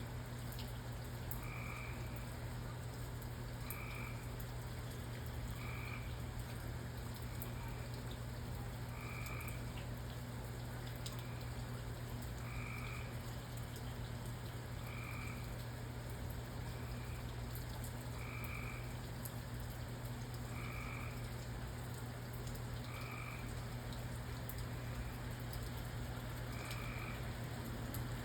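A frog calling in short, evenly pitched notes every two to three seconds over a steady hiss of rain with faint scattered drips. A constant low hum runs underneath.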